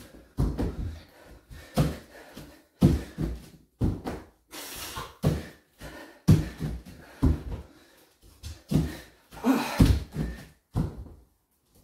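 Bare feet and hands thudding on the floor over and over during high knee burpees, about one landing a second, with hard breathing between landings. The thuds stop shortly before the end.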